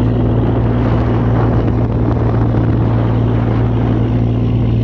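Boat engine running steadily, a constant low drone with a steady hum, heard on board over the sea.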